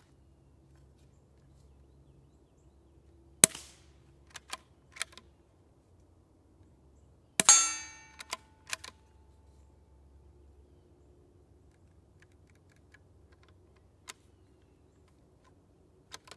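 Two suppressed .22 rimfire shots from a Ruger Precision Rimfire with an AB Suppressors MELB-P integral suppressor barrel, about four seconds apart. Each shot is a short sharp crack followed by quick clicks of the bolt being cycled. The second shot leaves a metallic ring that fades over about two seconds, and a few more bolt clicks come near the end.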